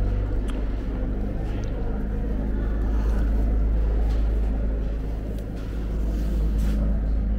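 Steady low mechanical hum and rumble of a large exhibition hall's background, with a few faint clicks.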